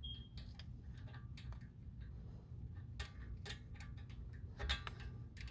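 Light, irregular metallic clicks and taps of a brake caliper and its bolt being handled and lined up by hand on a front disc brake, with one louder knock a little under five seconds in.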